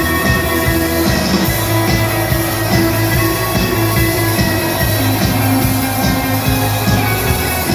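Instrumental music with a steady beat and sustained bass and chords, without vocals.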